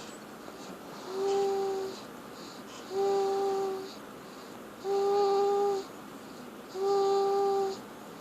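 Baby snoring: a steady, hum-like tone on each breath, four times about two seconds apart, each lasting just under a second.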